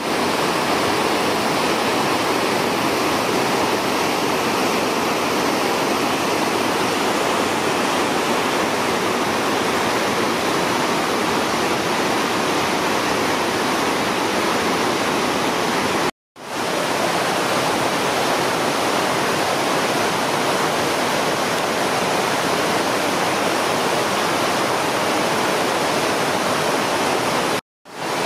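Whitewater rapids and a ledge waterfall on the upper Nantahala River at a 425 cfs release flow, making a steady, loud rushing roar. The sound drops out for an instant twice, about 16 seconds in and near the end.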